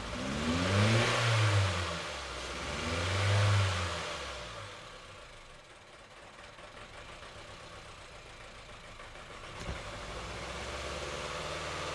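Honda Civic 1.4 i-VTEC four-cylinder engine revved twice, the pitch rising and falling back each time, then settling to idle. The engine still has an odd misfire on cylinder 4, put down to dirty fuel or clogged injectors.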